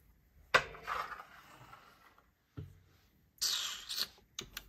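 A few light knocks and small clicks with a brief rustle, from small things being handled and moved about on a desk.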